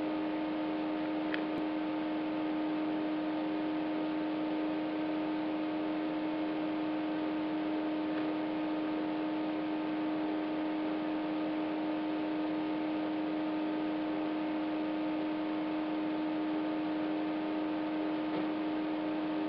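Steady electrical hum over a faint hiss: one constant low tone with several fainter, higher tones above it, unchanging throughout.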